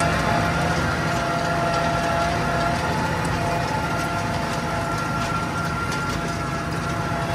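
Tractor engine running steadily under load, heard from the cab, while it pulls a tined cultivator across ploughed soil; a steady high whine runs over the engine, with scattered light clicks and rattles.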